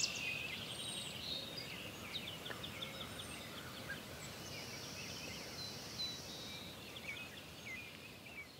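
Wild birds singing: several small birds chirping and trilling in quick repeated notes, over a faint steady background hiss.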